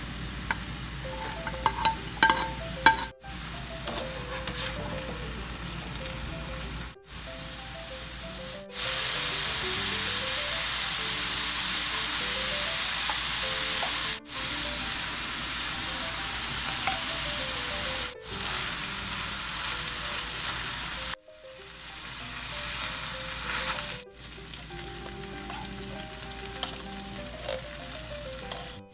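Ground beef and chopped onion sizzling in a frying pan, with spoon-and-spatula stirring and a few light clicks about two seconds in; the sizzle gets louder from about nine seconds in, then quieter after the chili beans go in, and cuts off abruptly several times. Soft background music with a simple melody plays underneath.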